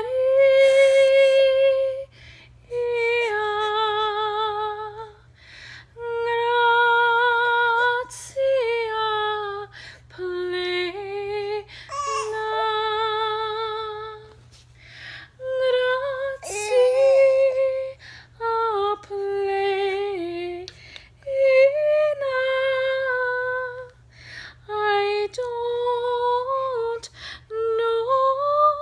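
A woman singing opera in a trained voice, holding long notes with vibrato in phrases of one to three seconds with short breaths between them.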